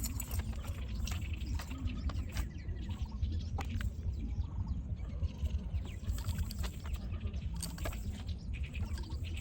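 Birds chirping over a steady low rumble, with scattered short clicks throughout.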